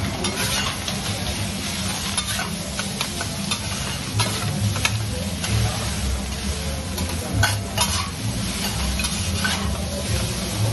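Food sizzling on a hot teppanyaki griddle, with metal spatulas scraping and tapping on the steel plate in frequent sharp clicks over a low steady hum.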